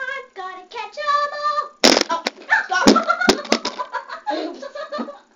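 Girls' high-pitched voices calling out, then about two seconds in a loud thump followed by a quick run of knocks and rubbing as the camera is knocked over. Noisy voices go on under the clatter.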